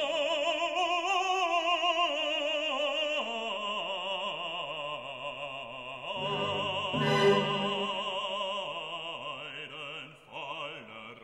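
Operatic singing laid over the footage as background music: a voice holding long notes with wide vibrato, fading near the end.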